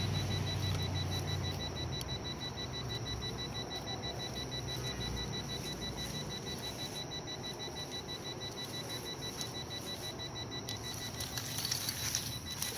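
Metal detector electronic tones while a dig hole is checked for a buried target: a faint, rapid, high beeping runs throughout, with a low steady tone for the first two seconds and a faint wavering tone in the middle.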